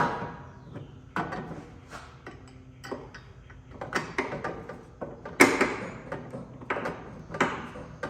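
Irregular metallic clinks and knocks, about ten of them with short ringing tails, as a bolt is worked into the mount of a Honda Civic's rear lower control arm while the arm is shifted into line. The loudest comes about five and a half seconds in.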